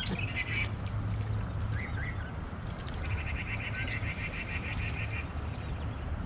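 Small animal calls: a few short high chirps, then about three seconds in a rapid, even trill of about ten pulses a second lasting a second and a half. Underneath runs a steady low rumble.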